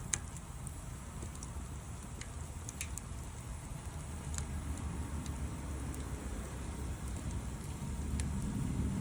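Wood campfire crackling, with a few sharp, sparse pops, over a low steady rumble that grows louder near the end.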